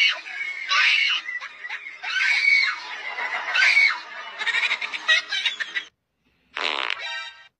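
Repeated high-pitched shrieks and squealing cries, loud and close together. They break off about six seconds in, and after a brief silence one more pitched cry follows.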